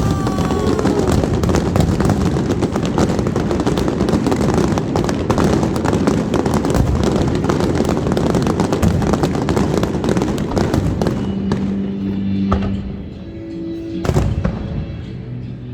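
Fireworks crackling and popping in a dense barrage over background music. The crackle thins out after about eleven seconds, leaving the music, and one more bang comes near the end.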